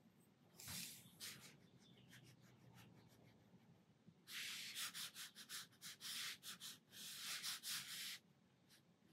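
Faint strokes of a watercolour brush on paper: a few soft swishes about a second in, then a quick run of short brushing strokes from about four seconds to eight.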